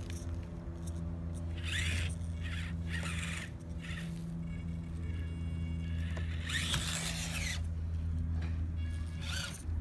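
Tiny brushed motor and gear drivetrain of a 1/25-scale Proline Ambush micro RC crawler whining in short spurts, four times, the longest about two thirds of the way in, as it claws over a plastic lid and rock. A steady low hum runs underneath.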